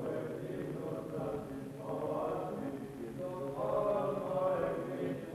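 Male voices chanting Byzantine church chant, long held notes that swell and ease in slow phrases.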